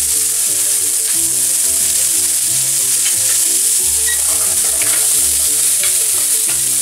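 Diced pumpkin frying in hot olive oil in a pan, a steady loud sizzle. Near the end it is stirred with a wooden spoon. A soft melody of background music runs underneath.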